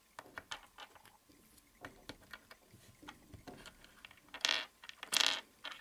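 Small plastic clicks and taps as a construction-toy minifigure is pulled apart and its pieces are handled and set down on a table, with two louder scuffing handling noises near the end.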